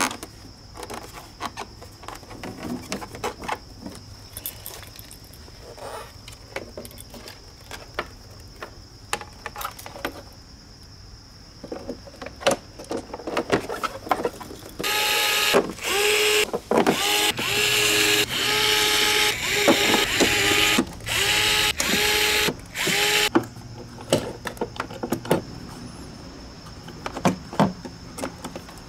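Cordless drill/driver running in about ten short bursts over some eight seconds, driving screws to fasten the plastic side cover back onto an electric unicycle. Before that, scattered light clicks and rustles of parts being handled.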